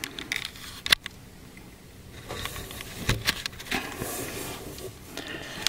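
Quiet handling noise: soft rustling with a few scattered clicks, about three in all.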